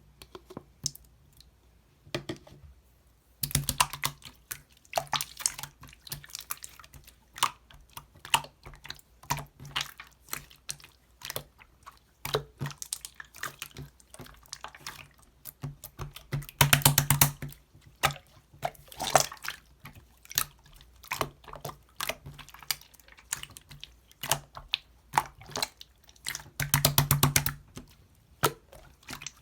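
Clear slime being squished and pressed by hand: a steady run of wet clicks and pops, with spells of rapid crackling a few seconds in, in the middle and near the end.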